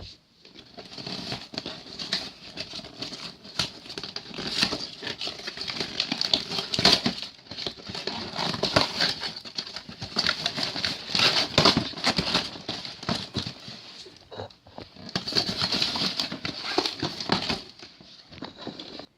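Toy packaging being opened by hand: cardboard and plastic rustling, crinkling and scraping, with many small clicks and knocks. It eases off briefly about fourteen seconds in, then starts up again.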